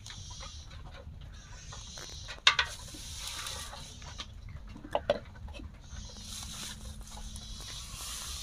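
Rice-flour batter sizzling in a hot clay pan over a straw fire: a steady high hiss, broken by two sharp knocks about two and a half and five seconds in.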